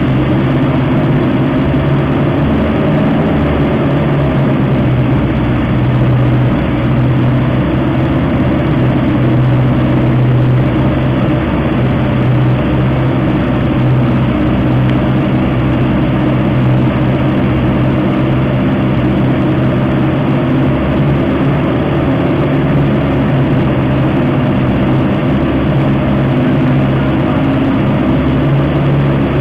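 Yoshine CDS 4 coaxial helicopter drive system running on test: a loud, even engine drone with a strong steady low hum, holding one speed.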